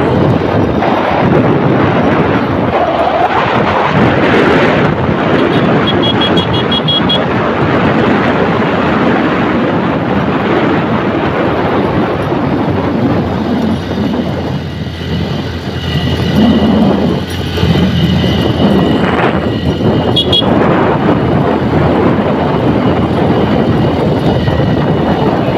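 Motorcycle riding up a winding hill road: the engine runs under load, mixed with steady wind and road noise on the bike-mounted microphone.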